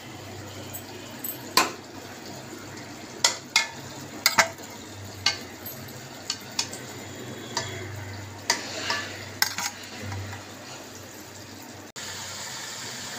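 A steel ladle scooping in a metal cooking pot, knocking and clinking against its sides about ten times, over the steady sizzle of chicken and tomatoes cooking in oil.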